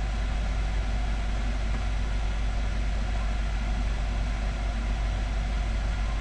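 Forced-air heating system running: a steady low hum of the blower and fan pushing air through the ducts, still blowing cold air as the heat comes on.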